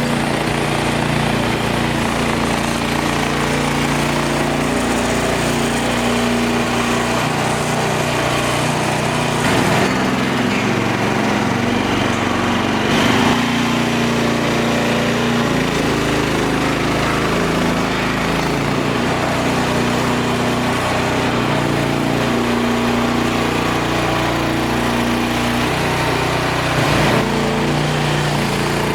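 Mini skid steer loader's small engine running steadily, its pitch shifting a little as the machine works, with a few brief louder moments.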